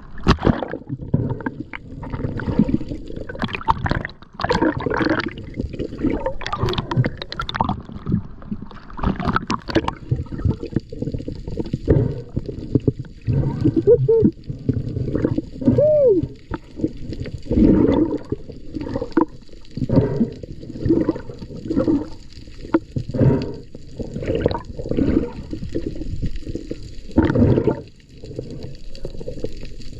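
Underwater water noise: muffled surges of rushing and gurgling water come every second or two, with a couple of short rising squeaky tones in the middle.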